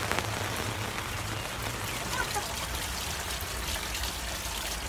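Heavy rain falling on a clear plastic cover and roof, with water running off: a steady hiss with scattered drop ticks.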